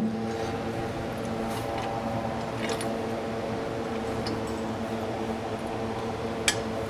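A steady mechanical hum fills the room, with a few faint taps and clicks as the steel bench plates and a bolt are handled.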